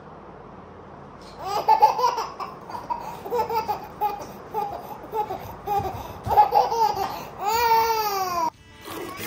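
Toddler laughing in a run of short giggling bursts, starting about a second and a half in, ending in one long high squeal that rises and then falls.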